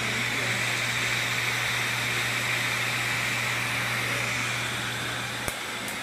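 Steady airy whoosh with a low hum from the laser tattoo-removal equipment and its cold-air skin cooler blowing through a hose, with two sharp clicks near the end.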